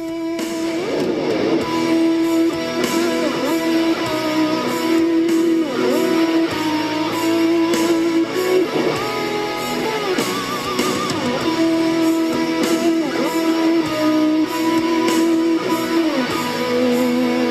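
Background music: an electric-guitar track with a steady beat.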